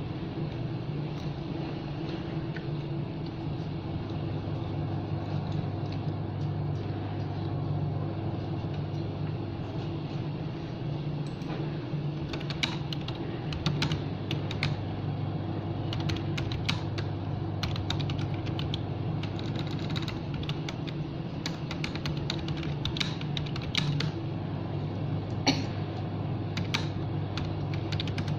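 Computer keyboard being typed on: irregular key clicks that start about halfway through, over a steady low hum.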